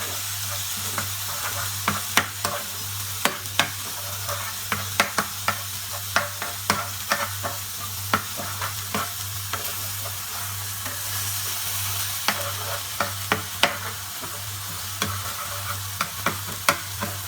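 Basa fish fillets frying in a pan of hot oil: a steady sizzle broken by frequent sharp pops and crackles as the water in the fish spits. A steady low hum runs underneath.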